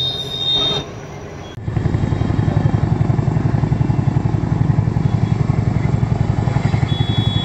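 Tandem-rotor CH-47 Chinook helicopter flying low overhead, its rotors beating in a fast, steady thudding rhythm that comes in abruptly about a second and a half in.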